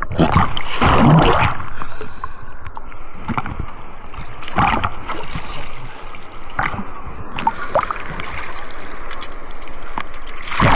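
Shallow surf water sloshing and gurgling, with louder splashes about a second in and again around five seconds.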